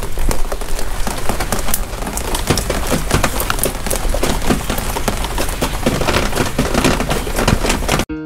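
Rain falling onto a wet wooden deck: a steady hiss with many sharp ticks of drops striking the boards and puddles. It cuts off suddenly near the end.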